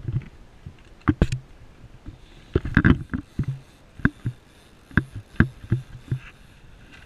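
About a dozen irregular knocks and slaps aboard a small fishing boat riding a chop, sharp and uneven in loudness, over a faint steady hiss.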